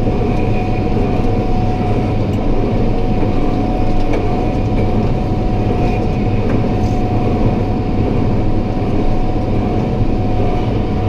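John Deere 7610 tractor's diesel engine running steadily, pulling a New Holland 315 small square baler that is baling grass. A steady tone runs over the engine drone.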